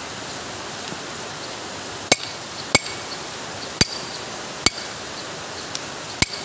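Hammer striking a steel punch set in the pinion housing bore of a Toyota Corolla power steering rack: five sharp metallic taps with a brief ring, starting about two seconds in and falling about a second apart, unevenly.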